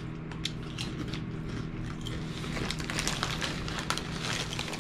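Crunchy potato-skin chips being chewed and the plastic chip bag crinkling in short, irregular crackles, over the steady low hum of a microwave oven running.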